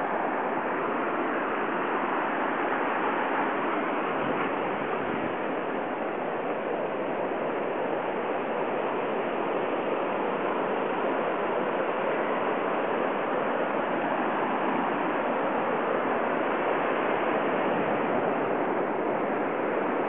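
Ocean surf breaking and washing up the beach: a steady, unbroken rush of waves.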